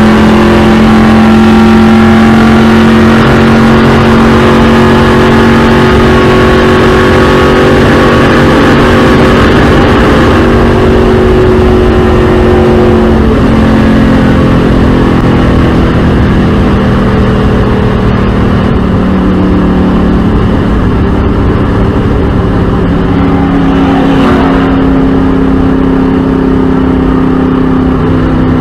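Stock car's V8 engine running flat out at racing speed, heard inside the cabin as a loud, steady drone over road and wind noise, its pitch shifting a little a few times.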